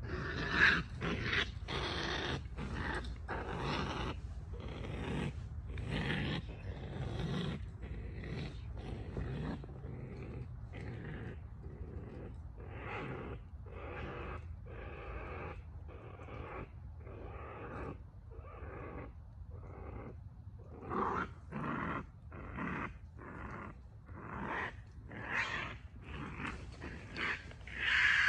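Trapped raccoon growling and snarling in short repeated bursts, roughly one a second, while held on a catch pole.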